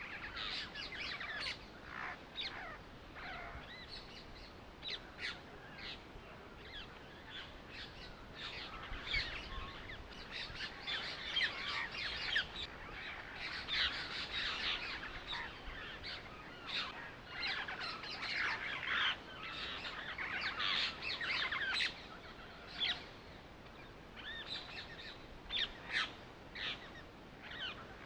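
Birds chirping and calling in a busy, irregular chorus of short chirps, thickest through the middle.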